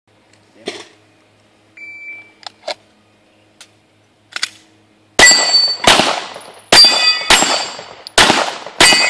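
Shot-timer start beep about two seconds in, a few faint clicks, then six handgun shots in quick succession, each followed by steel target plates ringing from the hits.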